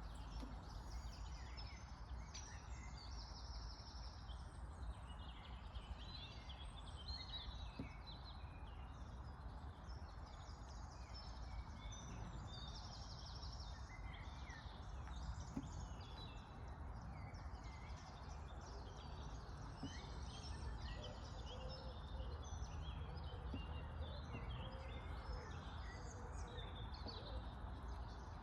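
Many birds chirping and calling, with short overlapping notes throughout, over a steady low background rumble.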